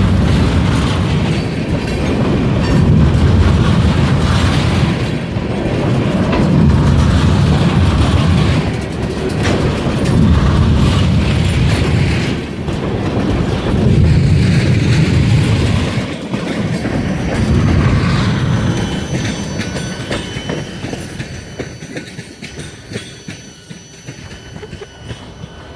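Freight train rolling past: a heavy rumble and clatter of the cars that swells and falls every few seconds as car after car goes by. The rumble fades away over the last several seconds, leaving faint thin high squealing tones.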